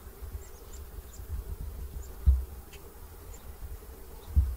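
An insect buzzing steadily close to the microphone, over a low rumble, with two dull thumps about two seconds apart and scattered faint high chirps.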